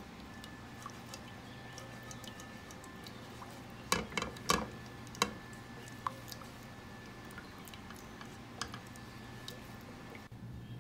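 Butter melting in a nonstick pan, with faint scattered crackles and ticks as it bubbles, and a silicone spatula stirring and tapping against the pan, loudest in a short run of clicks about four seconds in. A low steady hum sits underneath.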